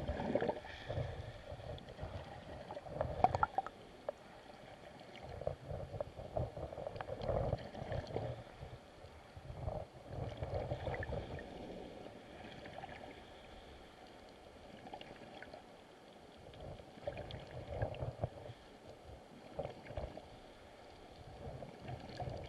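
River current heard through an underwater camera: muffled, uneven rushing and gurgling that swells and fades every second or so, with a few small clicks.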